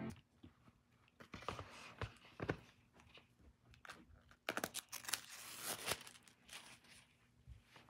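Rustling and handling of the thin protective sheet being lifted off a new laptop's screen, with scattered light clicks and crackles and a longer rustle about four and a half seconds in.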